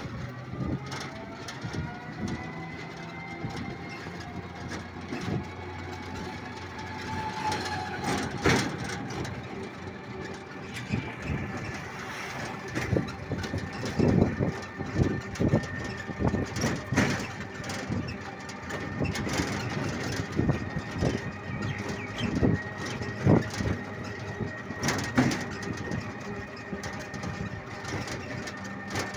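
A motor rickshaw driving along, its motor giving a steady high whine that rises in pitch about a second in and then holds. Frequent short rattles and knocks come from the vehicle's body.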